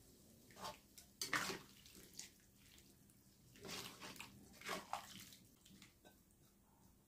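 Spatula stirring tofu and green beans in broth in a wok: faint, irregular sloshing and swishing of the liquid, about five strokes.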